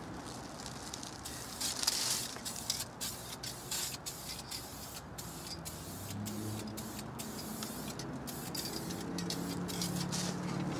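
Aerosol spray can of clear polyurethane hissing in short bursts with brief breaks between them as a light coat goes on.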